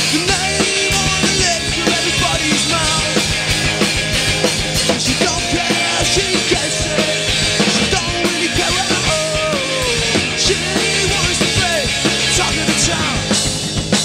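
Live punk rock band playing an instrumental stretch between sung lines, with electric guitars and a drum kit.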